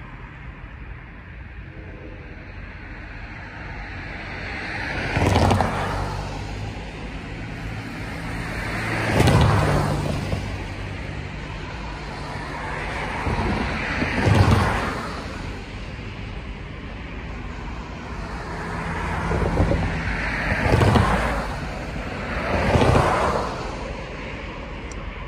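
Road vehicles passing by one after another, about five in turn, each a swell of engine and tyre noise that rises and fades away.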